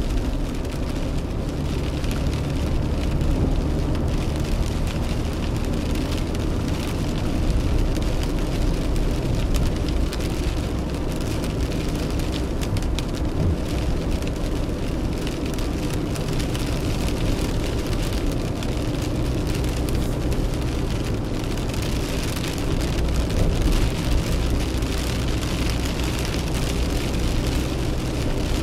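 Rain hitting a car's windshield and roof, heard from inside the cabin as many small drop hits over the steady low rumble of the car driving on a wet road.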